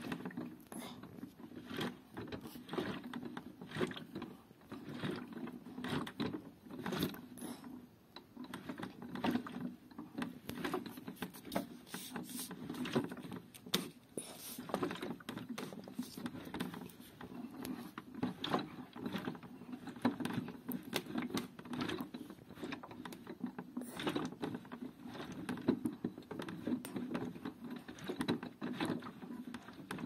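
Toy front-loading washing machine (Theo Klein Miele Softtronic) running a wash: its small motor hums steadily as the drum turns, with water sloshing and irregular plastic clicks and rattles.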